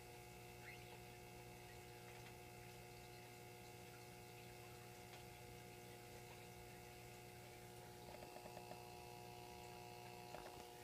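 Near silence: a faint steady hum of room tone, with a few faint ticks about eight seconds in.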